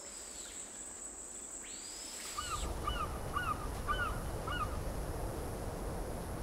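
Night ambience with a steady high insect trill, which cuts off about two and a half seconds in. An open outdoor ambience follows: a steady wind-like rush and a bird giving a quick run of about six short calls.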